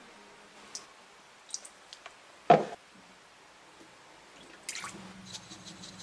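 Liquid poured from a spoon into a glass measuring cup: a few light taps, one short loud splash about halfway through, then a faint trickle with small drips near the end.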